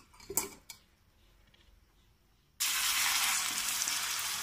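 A few scrapes of a steel spatula against the pan in the first second, then, from about two and a half seconds in, a sudden steady sizzle of the egg omelet frying in oil on the hot pan.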